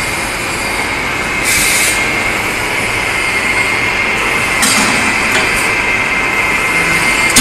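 Automatic steel-bar cutting and chamfering machine running with a steady high whine, while its chain feeder moves steel bars along. Metal clatters twice as bars shift, once about a second and a half in and again near five seconds in.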